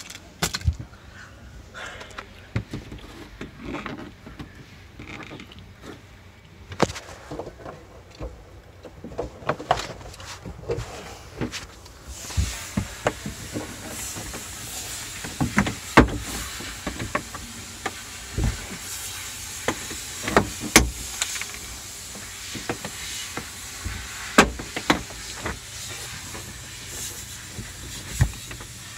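Irregular clicks and knocks of hands handling the plastic trunk-lid trim from inside a Nissan Tiida, over a steady hiss that grows louder about halfway through.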